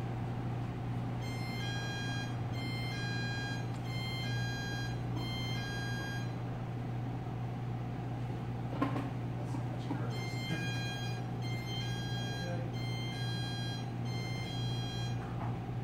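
An electronic ringing tone in short repeating melodic bursts, about one a second for five seconds, then again after a pause of about four seconds. A steady low hum runs underneath, and a single knock comes about nine seconds in.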